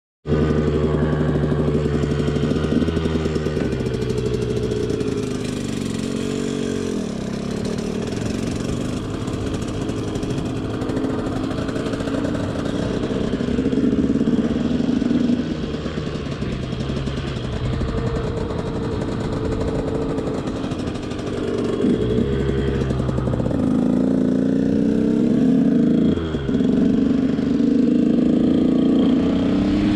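KTM SX 125's two-stroke single-cylinder engine running as the bike is ridden, its revs rising and dropping several times with quick swoops in pitch.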